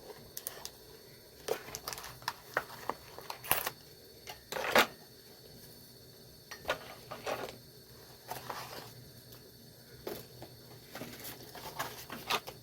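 Toy packaging being handled and opened: scattered small clicks, taps and short rustles of plastic and cardboard.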